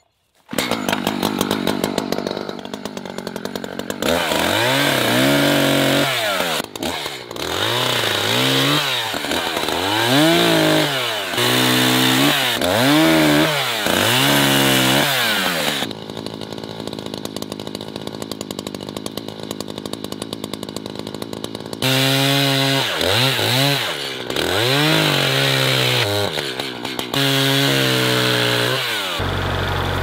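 Echo two-stroke gas chainsaw starting up and running, then revving up and down again and again as it cuts, with several seconds of steadier running in the middle. Near the end a tractor engine idles.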